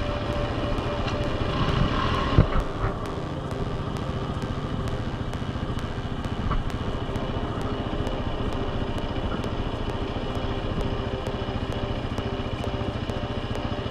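An ATV engine revs up as a quad pulls away on dirt over the first couple of seconds. After that an ATV engine idles steadily close by.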